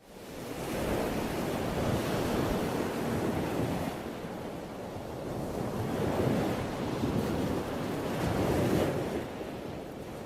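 Loud rushing outdoor noise of wind and surf, starting abruptly and swelling and easing every few seconds.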